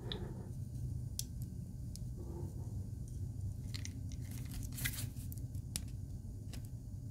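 Scattered light clicks and handling noises as an aluminium crimp bead is fitted onto thin stainless steel cable and set in the jaws of crimping pliers.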